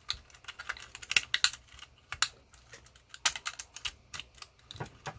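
Irregular quick clicks and taps of a hand tool working against the parts of a massager being dismantled for scrap.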